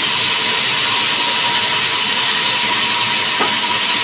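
Sawmill band saw cutting lengthwise through a log as it is pushed along the table: a steady high whine over a loud hiss, with one brief click about three and a half seconds in.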